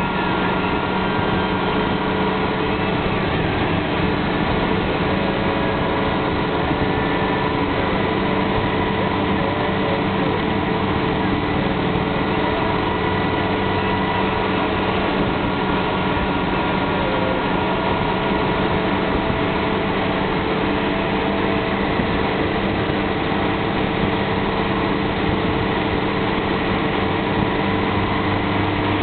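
Motorcycle engine running at a steady cruising speed, with wind and road noise. The pitch holds even throughout; a lower hum joins near the end.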